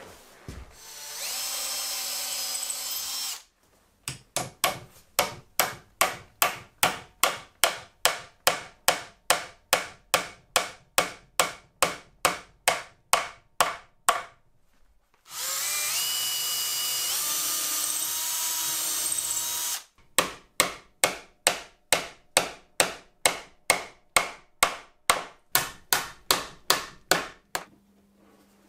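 A cordless drill runs twice for a few seconds, its pitch rising in steps. Between the runs come two long series of steady, evenly spaced hammer blows, about three a second.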